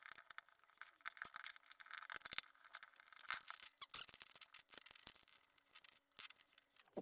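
Small screwdriver working the screws of a mini air compressor's plastic housing: faint, irregular clicks and scrapes of metal on screw heads and plastic.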